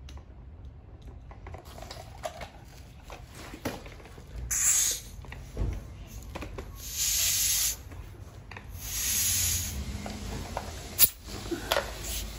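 Air hissing into a punctured bicycle inner tube in three bursts of about a second each, as the tube is inflated to find the hole. Light handling knocks throughout and a sharp click a little before the end.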